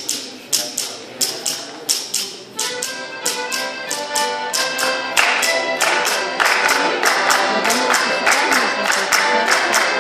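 A group claps hands in a steady beat, about three claps a second. A couple of seconds in, a Circassian folk dance tune joins the clapping, and the music grows louder about halfway through.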